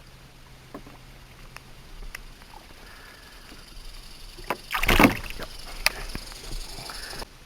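Handling noises aboard a small skiff: scattered light clicks and knocks, with a louder rush of noise about five seconds in, then the sound cuts off suddenly near the end.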